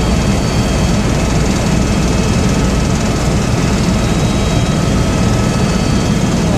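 Steady drone of a helicopter's rotor and engine in flight, heard from inside the cabin, with thin steady high whines above the low rumble.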